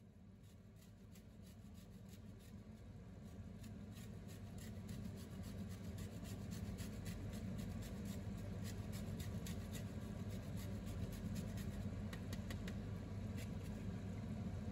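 Lemon rind rasped against a metal box grater in repeated short scraping strokes, a few a second. A steady low hum runs underneath and grows louder.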